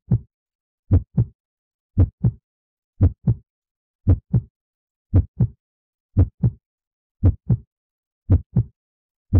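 Heartbeat sound effect: steady paired lub-dub thumps, about one beat a second.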